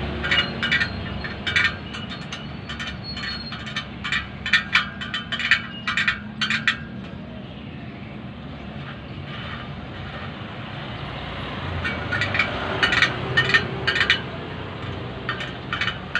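Sharp metallic clicks and clinks from truing a spoked motorcycle rear wheel on a stand, the spoke wrench working the nipples, in two runs of quick clicks with a pause between them. A low steady rumble lies underneath.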